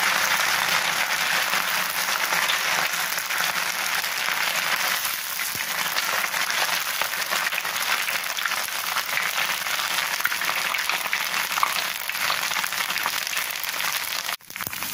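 Boiled noodles coated in arrowroot deep-frying in hot oil over a high flame: a dense, steady sizzle with fine crackling. It cuts out briefly just before the end.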